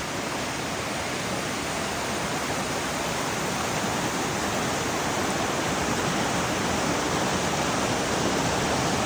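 Bridal-veil type waterfall, water spilling over a rock face: a steady rush of falling water that grows slightly louder.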